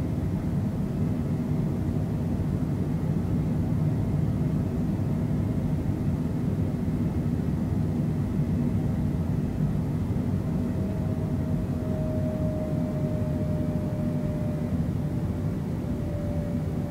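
Steady low rumble of a Boeing 767's jet engines and airflow heard inside the passenger cabin. About two-thirds of the way through, a faint whine comes in and falls slightly in pitch.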